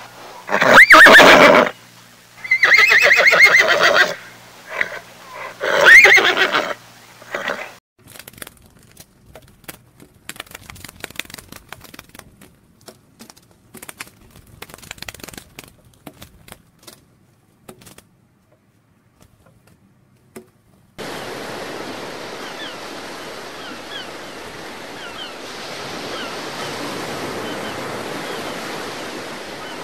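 A horse whinnying: three loud neighs, about a second, three seconds and six seconds in. After them come scattered faint clicks, and in the last third a steady rushing noise.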